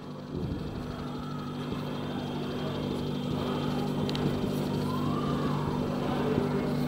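Steady low hum under a haze of background noise that grows slightly louder.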